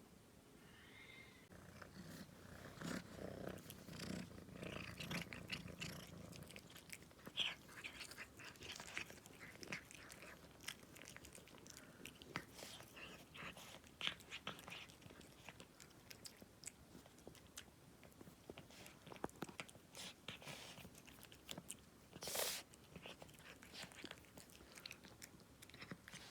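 A cat purring faintly for the first few seconds, then eating a snack with many small chewing and licking clicks. Near the end comes one short, louder noisy burst.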